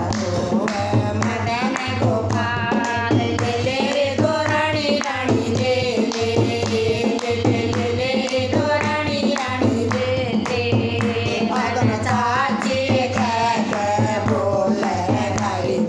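Women's voices singing a Krishna bhajan together, accompanied by a steady rhythm on a dholak drum and hand clapping.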